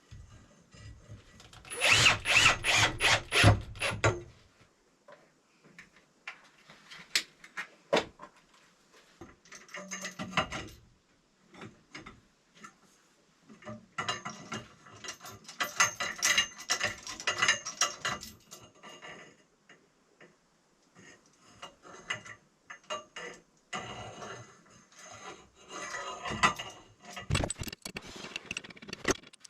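Workshop tool sounds: a loud run of rapid mechanical clicking about two seconds in, then bursts of irregular clattering and tool noise on and off.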